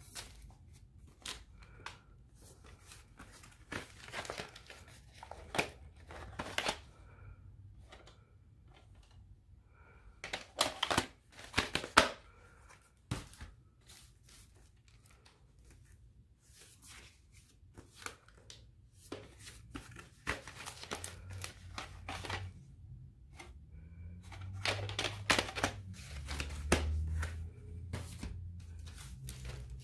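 Hard plastic clamshell VHS cases being handled and swapped: scattered clicks, taps and crinkling plastic rustles in bunches a few seconds apart, with a low rumble near the end.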